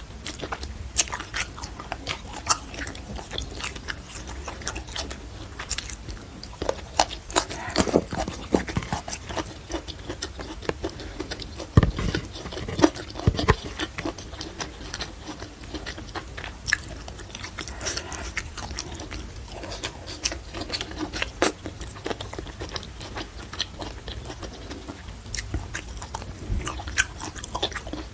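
A person chewing and biting food close to the microphone: wet mouth sounds with irregular crisp crunches, the loudest a little before the middle. The food is spiced shrimp eaten by hand, then fresh green vegetables.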